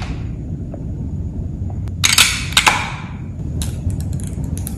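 Hard clicks and clacks from a Freemax Marvos X vape mod being handled as its 18650 battery and battery sleeve are fitted. A couple of sharp clacks come about two seconds in, then a run of small quick clicks near the end, over a steady low rumble.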